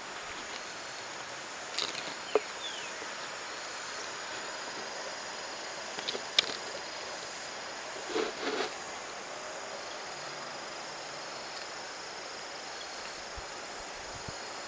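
Steady high insect chirring, with a few sharp clicks in the first half and a short scuff a little past the middle.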